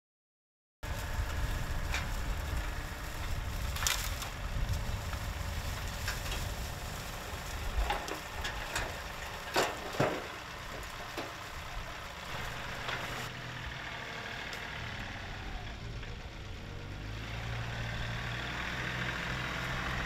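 A John Deere 2038R compact tractor's diesel engine running as its grapple carries a big load of brush and limbs. Branches crack and snap several times, loudest about ten seconds in. The sound starts just under a second in.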